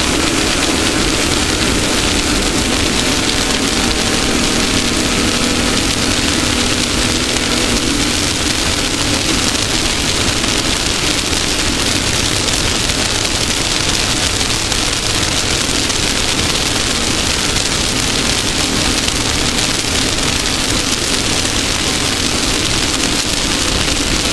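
Off-road race car engine running steadily under a loud, constant rushing noise. The engine note is strongest in the first few seconds, then sinks into the rush.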